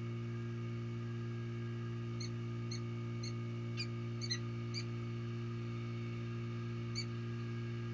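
Short, squeaky peregrine falcon calls, about two a second for a few seconds from about two seconds in and once more near the end, over a steady low electrical hum.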